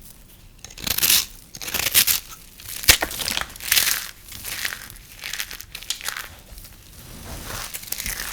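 Knife cutting through dry, brittle soap: crisp crackling, crunching strokes about once a second, with one sharp click about three seconds in.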